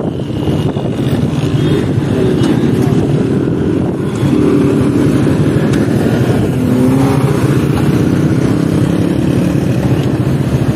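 Old Honda motorcycle's engine running under the rider at low city speed, its pitch rising and falling a few times as the throttle is worked through a turn, with wind and street traffic around it.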